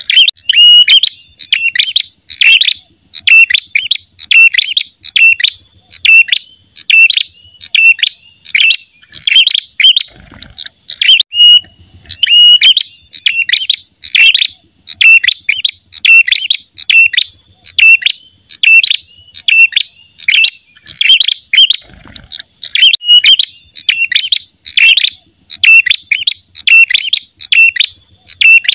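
Ashy tailorbird (prenjak kepala merah) giving its aggressive fighting call: loud, sharp, high chirping notes repeated in quick runs with only brief gaps. It is a territorial challenge call of the kind used to lure wild birds.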